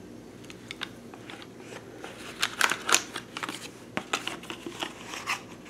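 Handling noise: a scatter of small clicks and taps as a loaded rifle stripper clip of cartridges is set down on a wooden table and a cardboard stripper clip is picked up. The taps are busiest around the middle.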